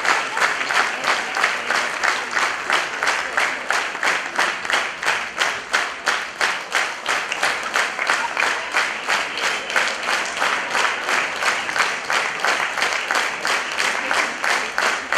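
Audience applauding the final bow, clapping in unison to a steady beat of about three claps a second.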